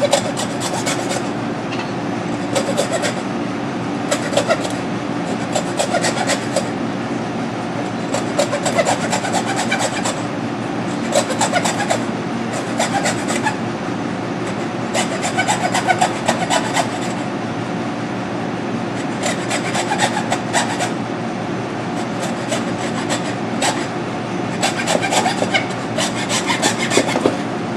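A blade sawing through lamb rib bones along the spine, one bone at a time: short bursts of rasping back-and-forth strokes every second or two, with brief pauses between.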